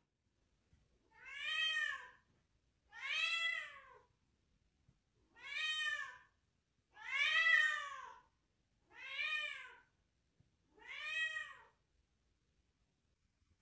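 A cat meowing six times: long meows, each rising then falling in pitch, about two seconds apart.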